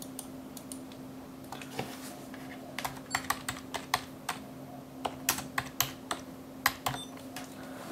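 Typing on a computer keyboard: a run of about a dozen keystrokes, unevenly spaced, with a steady low hum underneath.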